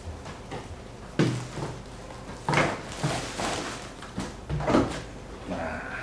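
Unboxing: a plastic-wrapped drip coffee maker is pulled out of its cardboard box, with rustling and crinkling of the plastic bag and cardboard and four or so sudden knocks and scrapes as it is handled.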